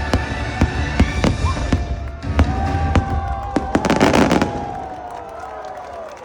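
Fireworks bursting in quick succession with low booms, over orchestral show music from loudspeakers. A dense crackling burst comes about four seconds in, then the bangs thin out and the level drops near the end.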